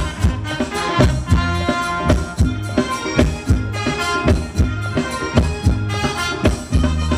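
Thai ramwong dance music from a live band over a PA: held melody notes over a steady drum beat of about two beats a second.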